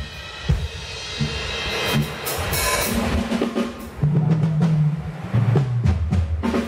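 Drum kit being tried out during a band's sound check: loose hits and a short fill, with low held notes joining in from about halfway through.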